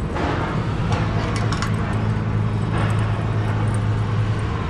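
A steady low engine hum with scattered light metal clinks and brief rustling from tarp bungee hooks being handled on a flatbed trailer.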